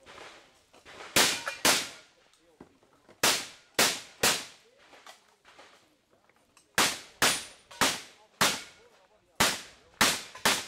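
Shotgun shots fired in quick strings of two to four, about half a second apart, with gaps of a second or two between strings; each shot is sharp with a short fading tail.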